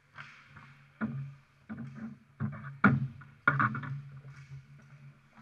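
Ice hockey board battle right at the glass: a run of sharp bangs and clatters as sticks, the puck and players hit the rink boards and glass, loudest about three seconds in, with skates and sticks scraping on the ice between hits.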